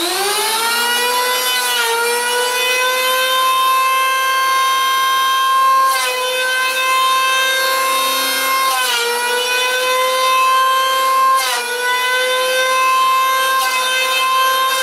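Small corded electric hand planer spinning up and running with a loud, steady whine, its pitch sagging briefly about four times as the blades bite into a block of wood being levelled flat.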